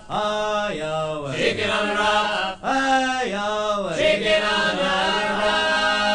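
Unaccompanied voices singing a sea shanty as a canon, with the lines overlapping, then settling into a long held chord about four seconds in.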